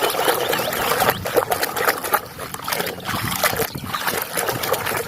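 Water splashing and trickling as a muddy toy vehicle is washed, with irregular small knocks and rubs from handling it.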